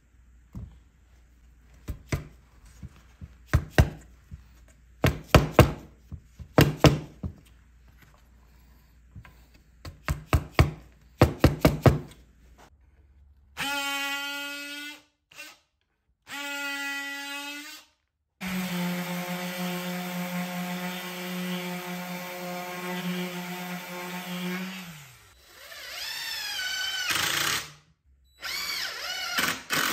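A series of sharp knocks on wood, then a DeWalt cordless oscillating multi-tool buzzing in two short bursts and a longer run that drops in pitch as it stops. Near the end a DeWalt cordless drill whirs in short runs that rise and fall in pitch.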